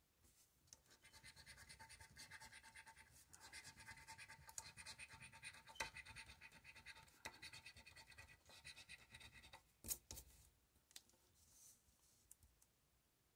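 Faint, rapid scraping of a coin or fingernail rubbing the latex coating off a paper lottery scratch-off ticket, in quick irregular strokes, with one louder tap near the end before the scratching stops.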